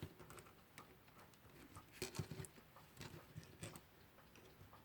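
Faint, irregular small clicks and taps from handling a small alarm clock movement, bunched about two seconds in and again about three seconds in, over near silence.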